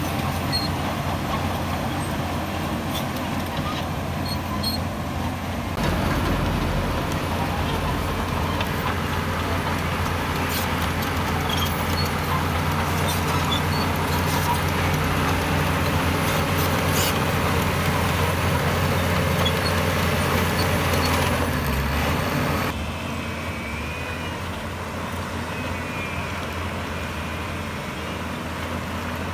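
Diesel engines of heavy construction machinery running steadily, with a few sharp clicks in the middle. The sound changes abruptly about six seconds in and again about three-quarters of the way through.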